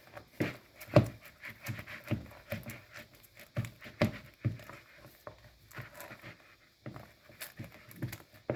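Irregular soft knocks and taps, about two or three a second, of a spoon stirring and pressing thick, stiff eba (cooked garri dough) in a bowl.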